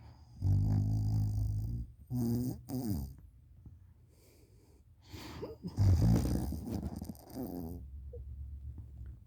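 A person snoring with the mouth open: two long low snores, one starting about half a second in and the louder one about six seconds in, with two short snorts between them.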